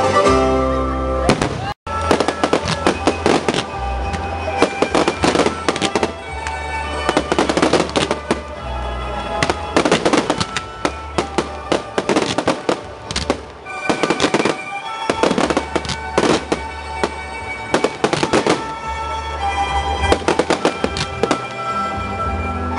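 Fireworks display with aerial shells bursting in quick succession, many sharp bangs one after another, with music playing underneath.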